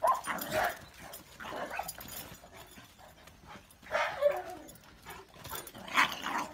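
Dogs barking and yipping in short, sharp bursts, loudest at the start, about four seconds in and about six seconds in: excited barking at play.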